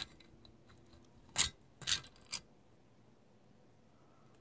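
Three short, sharp clicks and scrapes of carburetor parts, about a second and a half to two and a half seconds in, as the top section (air horn) of an Edelbrock 1406 four-barrel carburetor is lifted off the main body.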